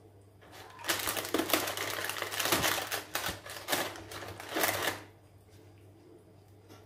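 A dense crackling rustle of something being handled by hand, lasting about four seconds and then stopping.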